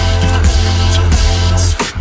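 Electronic dance music with a heavy, steady bass line, dropping out for a moment near the end.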